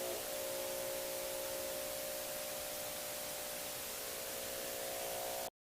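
Steady hiss of static with a held droning chord underneath, cutting off abruptly to silence about five and a half seconds in.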